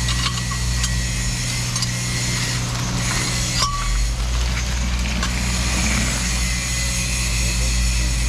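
An engine running at a steady speed, with a few light metallic clinks over it.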